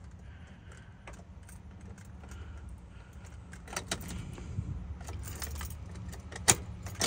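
Key ring jangling with a few sharp clicks as the key is worked into a 2003 Chevrolet Avalanche's ignition and turned. The engine does not crank: the truck is dead.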